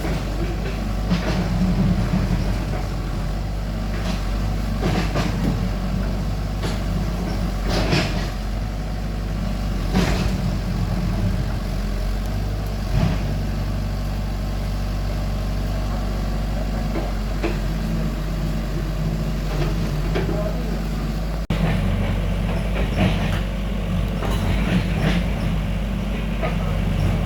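Excavator diesel engine running steadily, with irregular clanks and knocks from the working machine as it loads soil into a truck.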